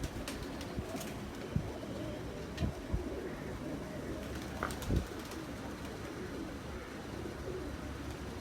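Domestic high flyer pigeons cooing continuously, with a few short thumps or clicks, the loudest about five seconds in.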